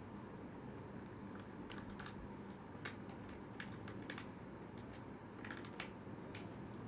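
Light scattered clicks and crinkles of thin plastic as the printed seal is peeled back off the toy half of a Kinder Joy egg and the plastic pod is opened, over a low steady hum.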